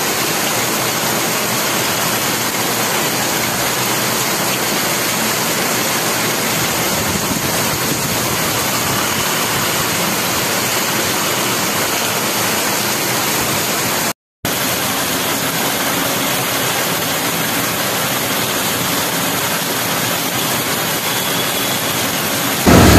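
Heavy monsoon rain pouring onto a flooded street, a steady dense hiss of downpour splashing into standing water. The sound cuts out completely for a moment about two-thirds of the way through, and a louder low rumble comes in at the very end.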